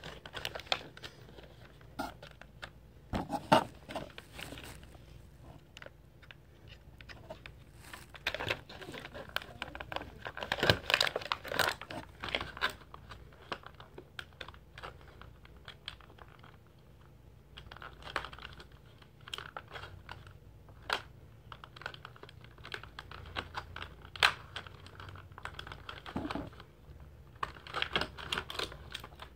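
Clear plastic action-figure packaging being handled: irregular crinkling and clicking, louder about three and a half seconds in and again around eleven seconds.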